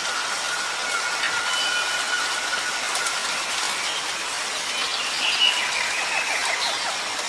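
Steady rain falling, with a thin steady whistle through the first half and a few short high chirps over the hiss in the second half.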